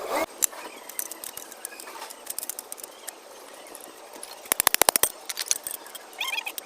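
Light clicks and taps of hand tools working on engine parts, with a quick even run of about ten clicks a little past halfway.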